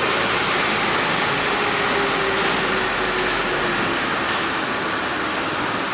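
Supercharged Audi A6 V6 engine running steadily at idle, which the owner believes has rod knock from worn rod bearings.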